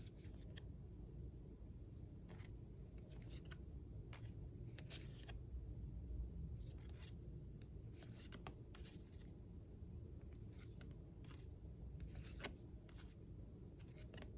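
Faint flicking and rustling of trading cards being handled and flipped through, with brief soft scrapes scattered over a low steady hum.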